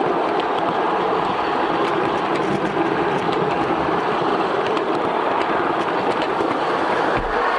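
Backyard miniature railway train rolling along its track: a steady rolling noise of wheels on rails with occasional light clicks.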